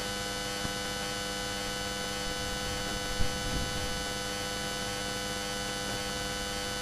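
Steady electrical hum made of many steady tones stacked from low to high, with a brief low bump about three seconds in.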